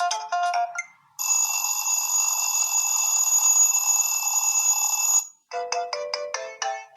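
Preset ringtones of a BQ-5007L Iron smartphone played through its speaker: a quick electronic melody ends about a second in, then a steady, hissy held tone lasts about four seconds and cuts off, and another quick melody of short notes begins.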